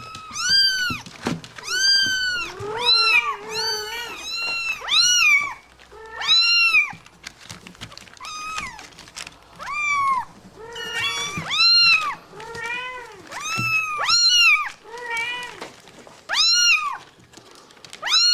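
Cats meowing over and over: short meows that rise and fall in pitch, one after another, some overlapping.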